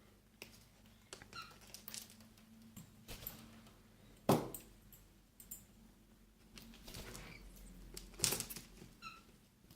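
Cockatiels pecking and cracking food: scattered small clicks and crunches, with two louder knocks about four and eight seconds in and a couple of short chirps.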